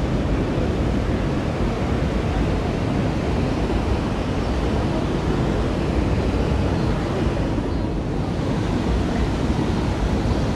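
Waterfall's steady rushing of falling water.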